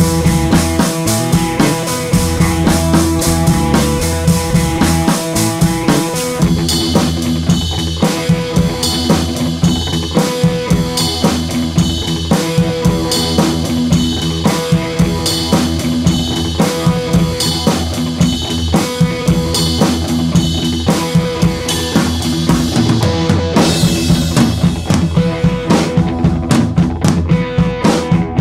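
Background music with a steady drum beat under sustained pitched instruments; brighter, sharper hits join about six and a half seconds in.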